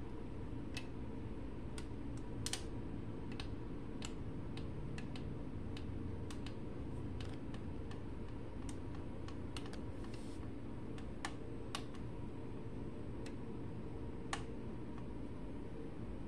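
Utensils and a plate clicking and tapping lightly and irregularly, over a steady low hum.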